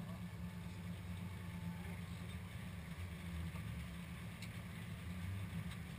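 Off-road 4x4's engine idling steadily with the vehicle stopped, heard close up from the bonnet.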